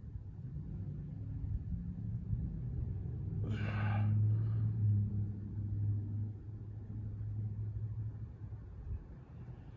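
A low, steady rumble that swells through the middle and fades near the end, with one short breath from the person exercising about three and a half seconds in.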